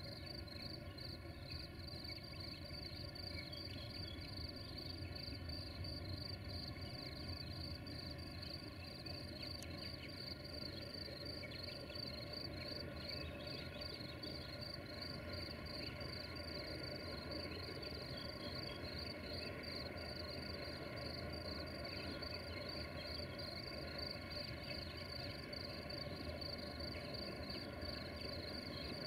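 Crickets chirping in an even, rapid pulse over a faint, steady low rumble and drone, the sound of the distant diesel freight locomotives climbing a grade.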